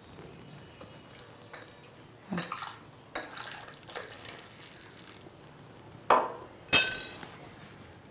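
Stainless steel pot, spoon and tumbler clinking as milky coffee is poured from the pot into the tumbler. A few light clatters come first, then two sharp, ringing metal clinks near the end, the loudest sounds.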